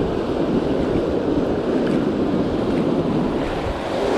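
Ocean surf washing in over shallow sand, with wind on the microphone; a wave washes up louder near the end.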